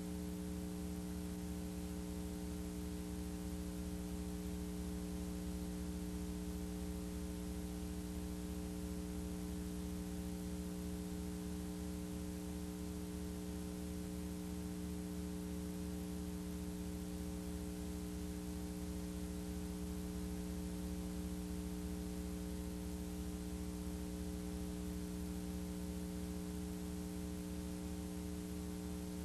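Steady electrical hum with several fixed tones over a layer of hiss, unchanging throughout: the blank signal of a VHS transfer, with no programme sound.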